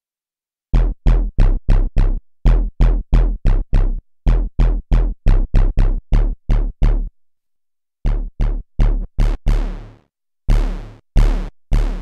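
Behringer Vintage software synthesizer playing its Detroit Bass preset: a quick rhythmic run of short, punchy bass notes, each with a sharp attack and a fast-closing filter. After a short pause about seven seconds in, the run picks up again and the last few notes ring out longer and brighter.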